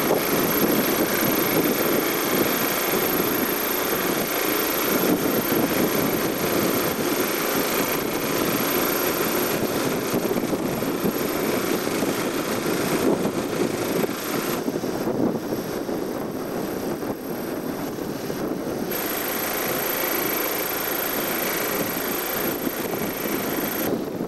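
Small 9.9 hp outboard motor idling steadily.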